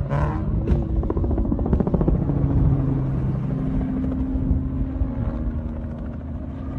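Off-road race vehicle engines running hard, rough and pulsing at first, then settling into a steady drone.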